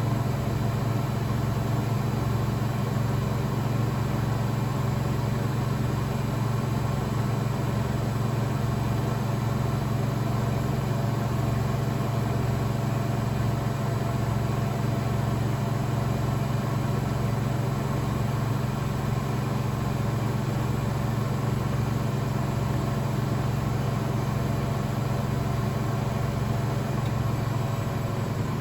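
Blomberg WAF 7442 SL front-loading washing machine spinning its drum at speed, a steady hum with a regular low throb.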